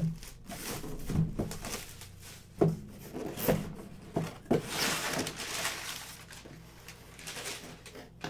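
Unpacking a mystery box by hand: a series of sharp knocks and clicks as cardboard and packaged items are handled, with a brief rustle about five seconds in.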